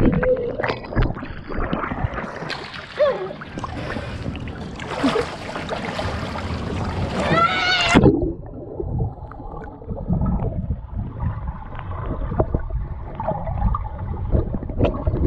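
Water in a swimming pool heard through a waterproof camera dipped below the surface: muffled rushing, gurgling and bubbling with small knocks. About halfway through comes a short muffled pitched sound.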